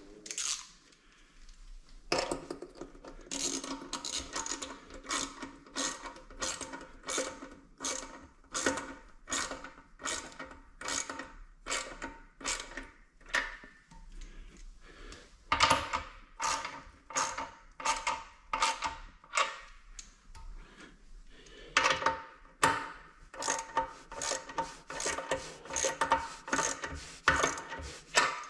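Ratchet wrench tightening the nuts on a toilet's floor (closet) bolts: a steady run of sharp clicks about two a second, pausing briefly a couple of times and picking up again.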